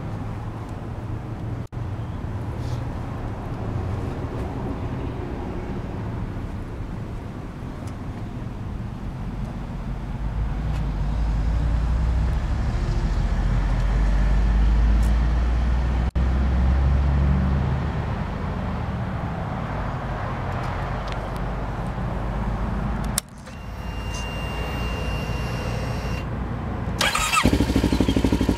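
Kawasaki Ninja 650R's parallel-twin engine idling steadily, heard close to the bike, louder for a stretch in the middle. Near the end the sound turns brighter and louder.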